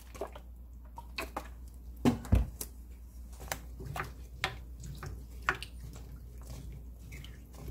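Wooden spoon stirring cubed potatoes and carrots in water in a pot: splashing and irregular clicks and knocks of the spoon and cubes against the pot, the loudest about two seconds in.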